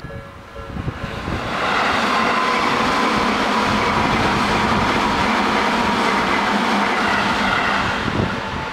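An electric commuter train running past at a level crossing: the noise builds over the first two seconds, holds steady with a whining tone that drifts slightly lower, then eases off near the end. The crossing's warning bell rings faintly under it at the start and end.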